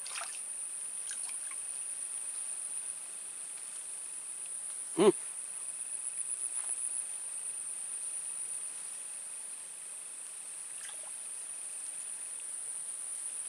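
Steady high-pitched drone of insects in a swamp, with one short voice-like sound about five seconds in.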